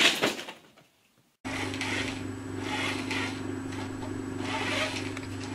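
A paper bag rustling loudly and dying away, then after a short break a steady low hum with a hiss over it.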